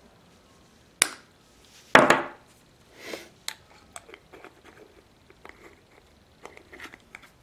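Diagonal cutters snipping off a cotton swab tip with a sharp click about a second in, followed by a louder knock and a few small taps and rustles as tools and a bottle are handled and set down on a tabletop.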